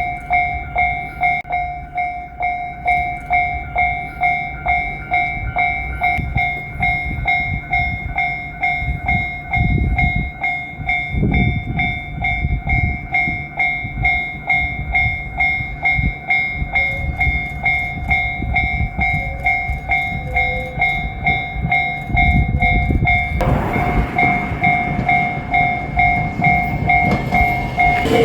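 Japanese railroad crossing warning bell ringing, an evenly repeated electronic ding. About 23 seconds in, the rumble of the approaching JR Shikoku 8000 series electric train rises under the bell.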